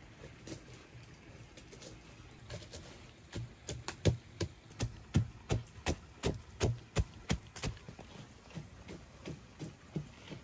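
Wooden pestle pounding walnut kernels in a wooden mortar: a steady run of dull wooden knocks, about two or three a second, loudest in the middle stretch.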